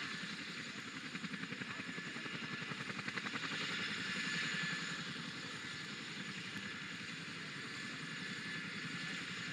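Large military helicopter running on the ground, its rotors turning with a steady, rapid beat over a constant engine hiss.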